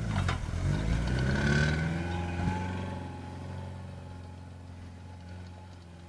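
Subaru's EJ22 2.2-litre flat-four engine under acceleration. It starts abruptly, rises in pitch over the first second and a half, then holds steady while the sound fades.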